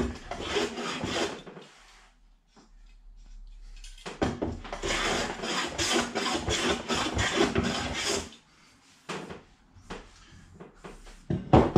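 Metal hand plane shaving the face of an oak window-frame piece to take off the pencil marks: a short run of strokes at the start, then a longer run of quick strokes for about four seconds. A sharp knock near the end is the loudest sound.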